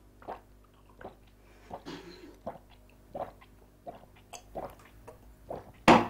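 A run of short, light knocks and clicks, roughly one or two a second, over a faint steady hum, with one louder knock near the end.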